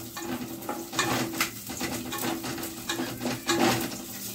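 Spatula stirring and scraping garlic frying in a little oil in a pan, with a few sharp scrapes about a second in and again around three and a half seconds.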